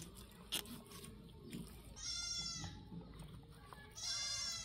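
A goat bleating twice: two calls about two seconds apart, each under a second long.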